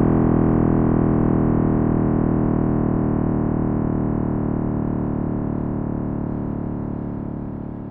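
A deep, synthetic-sounding drone of many steady tones layered together, with a fast flutter in its lowest notes, slowly fading out. It is a space-sound sonification, presented as the sound of the Big Bang or cosmic background radiation.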